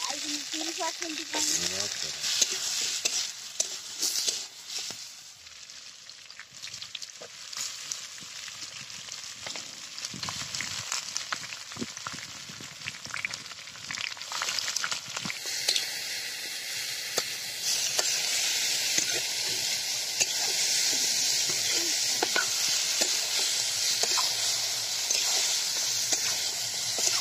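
Onions, potato cubes and then raw chicken pieces sizzling in hot oil in a metal kadai over a wood fire. A metal spatula stirring them scrapes and clicks against the pan, and the sizzle grows louder and steadier in the second half.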